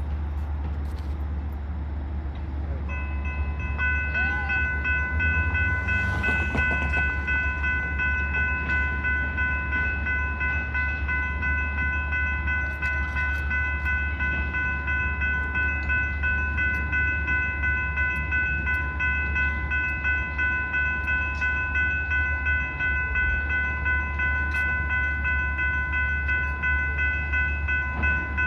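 Sound Transit Link light rail train standing at the platform, giving off a steady low hum; about three seconds in, a steady high whine of several tones sets in and holds.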